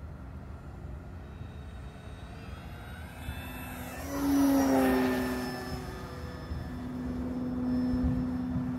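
FMS Pitts electric RC biplane's motor and propeller whining as it makes a low pass: the pitch falls as it goes by about four seconds in, where it is loudest. It then settles into a steady drone as it climbs away.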